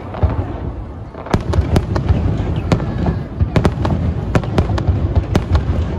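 Fireworks display: after a quieter first second, a rapid, irregular string of sharp bangs and crackles from bursting shells, over a continuous low rumble.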